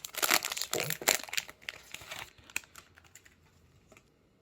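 Foil wrapper of a Pokémon TCG booster pack crinkling and rustling as the pack is opened and the cards are pulled out, busy for about two seconds and then dying down to faint handling.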